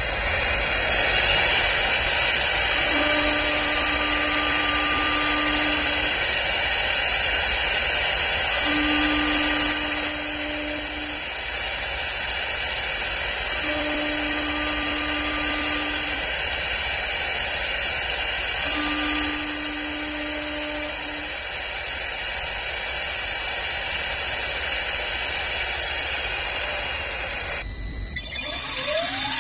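CNC woodworking lathe running: steady machining noise with a low motor hum that comes on four times for two to three seconds each, about five seconds apart. Near the end the sound breaks off and a rising whine begins.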